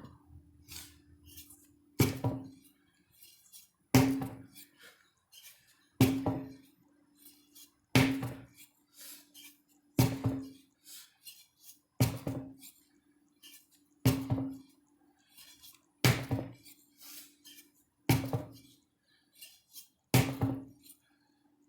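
A 25 lb sledgehammer striking, ten heavy blows evenly spaced about two seconds apart, each a sharp thud with a short ringing decay.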